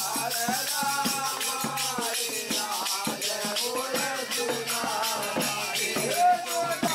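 Background music: a wavering melody over a low drone, with a steady rattling percussion beat.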